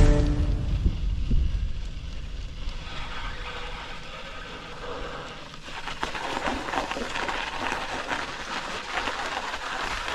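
Gravel bike tyres rolling over hard-packed snow and ice: a steady gritty, crackling hiss with a low rumble under it, growing louder about six seconds in.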